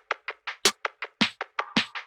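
Background music: an electronic beat of quick, evenly spaced percussion hits, about five or six a second.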